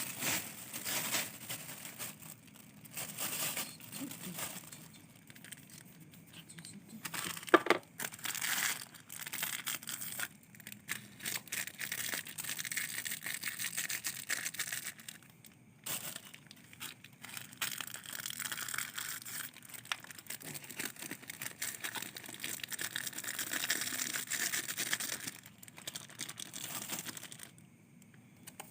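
Irregular crinkling and rustling of something being handled and crumpled, in uneven bursts, with one sharp knock about seven and a half seconds in.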